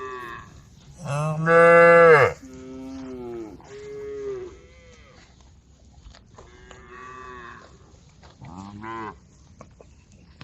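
Several cows mooing to one another, calling the herd. One close, loud moo comes about a second in, with fainter moos following through the rest.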